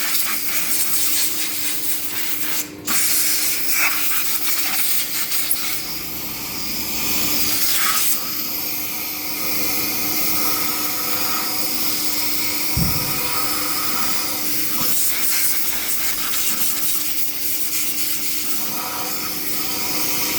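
Steady hissing spray of a high-pressure jet, with a brief break about three seconds in.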